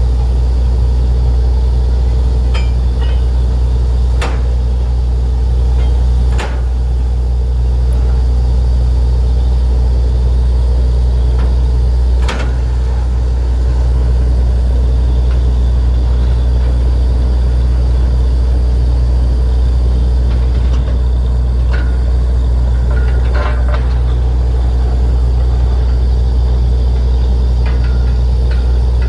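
Truck-mounted borewell drilling rig running steadily, its engine giving a loud, low, even drone. A few sharp knocks stand out in the first half.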